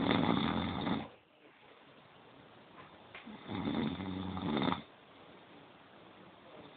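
A person snoring: two long, rasping snores about three and a half seconds apart, one at the start and one just past the middle.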